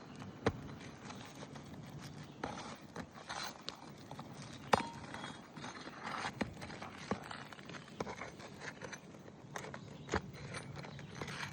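Hand tools working asphalt roof shingles: irregular sharp knocks and taps with some scraping, one louder metallic knock about halfway through that rings briefly.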